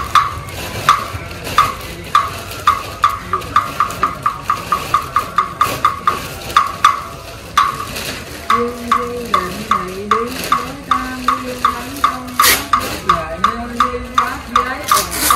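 Wooden fish (mõ) struck in a steady rhythm, about three knocks a second, for Buddhist funeral prayers; a low, near-monotone chanting voice joins the knocks about halfway through.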